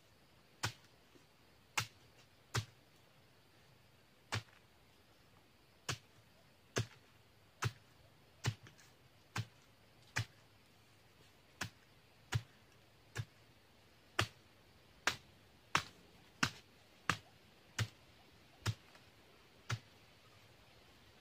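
About twenty sharp chopping blows of a hand blade cutting into the base of a young oil palm, pruning it. They are irregularly spaced about one a second, coming a little faster in the second half.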